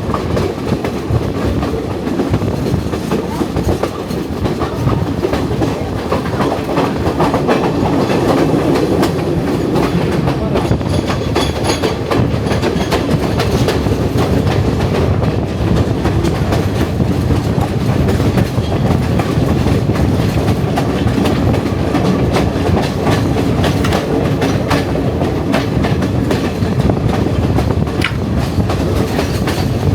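A passenger train running steadily, heard from inside a carriage: a constant rumble of wheels on the rails with a continuous clickety-clack of small knocks.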